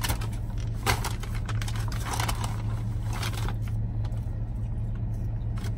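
Steady low hum of a car engine idling, heard inside the cabin. Over it a paper food wrapper and bag rustle and crinkle in short bursts, three or four times, as a burger and fries are handled.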